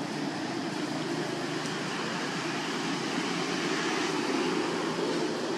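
A steady low rumble of background noise with a fainter hiss above it, unchanging throughout.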